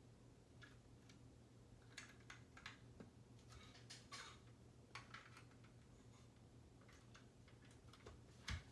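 Faint, scattered clicks and taps of plastic Lego pieces being handled and pressed together, with a soft thump near the end, over a faint steady low hum.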